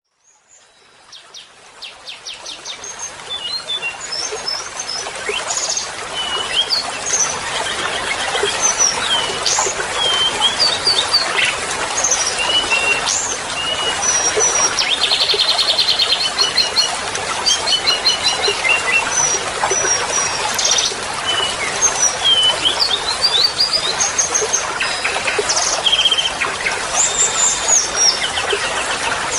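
Songbird 'masteran' training recording: a busy run of varied chirps, whistled slurs and fast trills over a steady hiss, fading in over the first few seconds.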